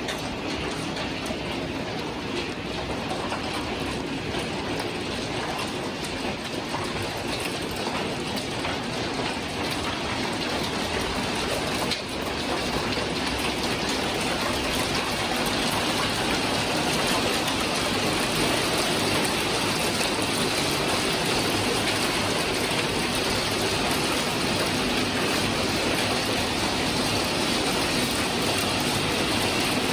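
Hail and heavy rain from a passing squall pelting the windows and balcony: a dense, steady patter of countless small hits that grows louder about twelve seconds in.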